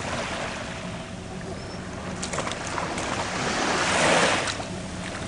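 Ocean surf washing on a sandy beach, swelling as a wave breaks about four seconds in.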